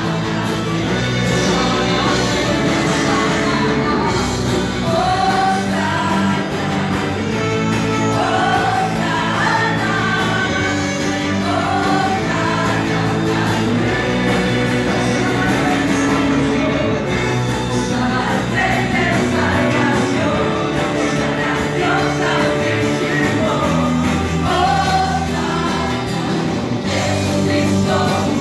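Live church worship band playing a praise song with singers, over steady sustained chords.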